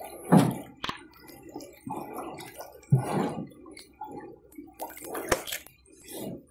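Irregular splashing and sloshing of shallow river water, broken by a few sharp knocks, as a grounded canoe is shimmied and pushed through low-water rapids.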